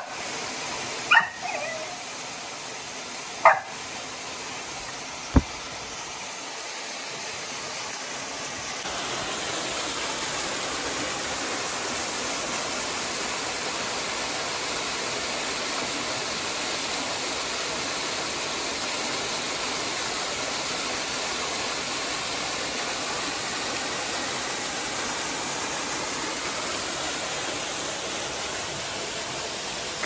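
A dog gives a few short high yelps in the first four seconds over the steady rush of a small waterfall. The waterfall's rush grows louder about nine seconds in.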